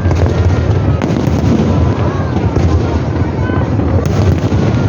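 Fireworks display: aerial shells bursting in a dense, continuous booming rumble, with sharper bangs about a second in and about four seconds in.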